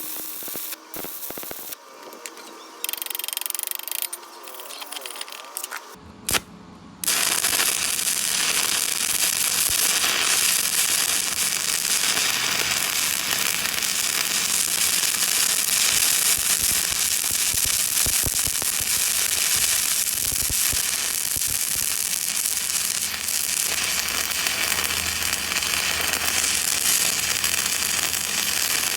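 Stick welding arc crackling steadily as a bead is run, starting about seven seconds in after a few short, broken sounds.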